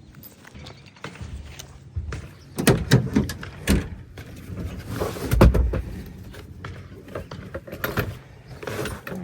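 Scattered knocks and clunks of hard material being handled, the loudest a heavy thump about five and a half seconds in.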